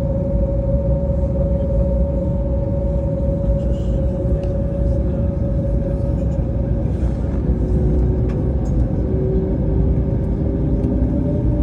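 Steady low rumble of an engine-driven vehicle heard from inside, with a constant humming tone over it that drifts a little higher near the end.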